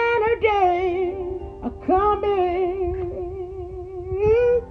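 A woman singing a slow soul song's long held notes with vibrato, over its backing music.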